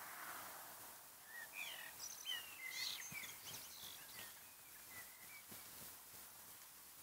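A bird singing in a quiet night ambience: a short run of quick chirps and whistled glides between about one and a half and three and a half seconds in, over a faint steady hiss.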